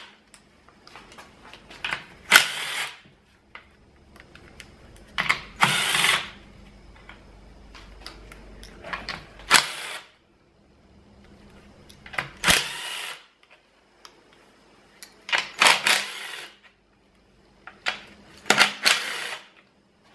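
Cordless drill spinning out valve cover bolts in short bursts of under a second each, about six times a few seconds apart, with quieter handling between them.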